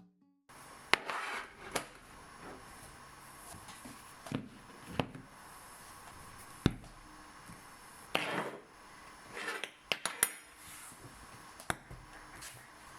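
Small hard objects being handled and set down in a small room: scattered sharp clicks and light knocks, with a few brief scrapes.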